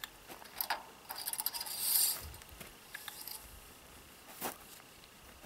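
Light clicks and metallic taps of hands working at a stopped garden-tractor engine, with a brief rustling swish about two seconds in, like a rag being wiped.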